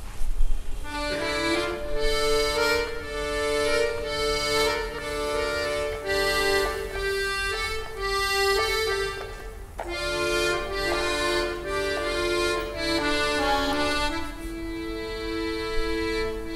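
Piano accordion played solo: a melody over sustained chords that starts about a second in, breaks briefly near the middle, and ends on a long held chord.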